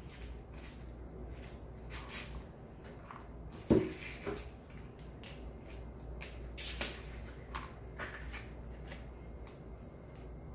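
Wire cutters and wired glitter floral picks being handled: one sharp clack of the cutters about four seconds in, amid faint clicks and rustles of the picks' wired branches.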